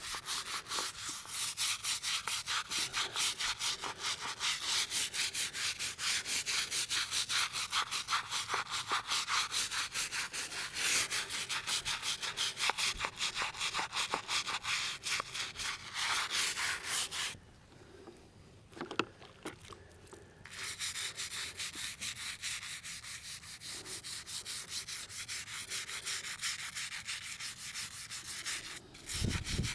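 Stiff-bristled brush scrubbing a headstone wet with cleaner, in fast, even back-and-forth strokes. The scrubbing stops for about three seconds just past the middle, then resumes more softly.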